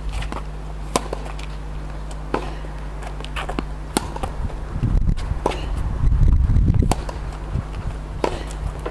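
Tennis rally: a tennis ball being struck back and forth with rackets and bouncing on the court, a sharp pock every second or so. A low rumble of wind on the microphone comes in around the middle.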